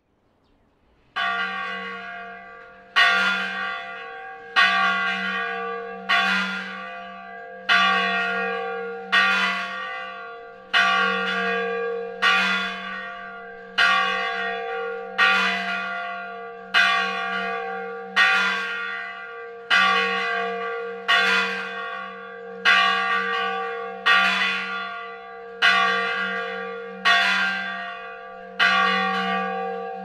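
An old church bell rung by hand with a rope, tolling in an even rhythm of about one stroke every one and a half seconds, each stroke ringing on into the next. The first stroke comes about a second in.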